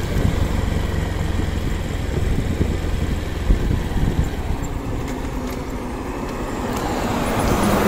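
Motorcycle riding slowly, with wind buffeting the phone microphone, then rolling to a stop in neutral with its engine idling. An oncoming car passes, swelling up near the end.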